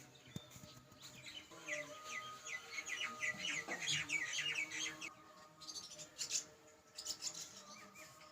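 A bird calling in a fast series of short, high chirps for about four seconds, then a few more scattered chirps near the end.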